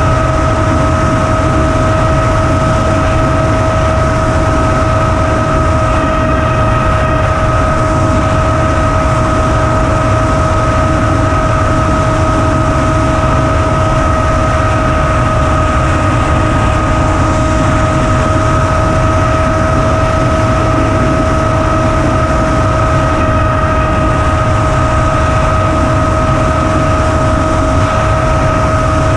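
Electric motor and propeller of an FPV flying wing whining at a steady pitch, heard from a camera mounted on the wing, over heavy wind rush.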